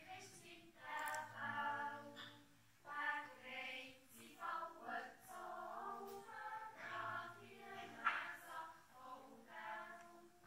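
Swiss children's yodel choir singing a cappella, in phrases with short breaths between them.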